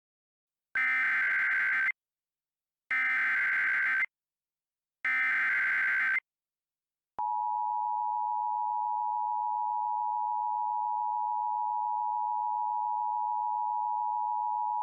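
Emergency Alert System SAME header: three bursts of buzzy digital data tones, each about a second long, followed by the steady two-tone EAS attention signal, held for about seven and a half seconds. Together they mark the start of a new emergency alert.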